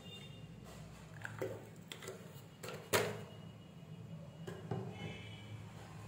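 Water poured from a plastic bottle into a glass bowl of sattu, then a few light kitchen knocks as the bottle is handled and set down, the sharpest about three seconds in, over a low steady hum.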